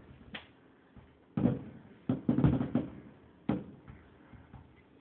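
Fireworks going off, heard through a window: several sudden booms at irregular intervals, with a quick cluster near the middle.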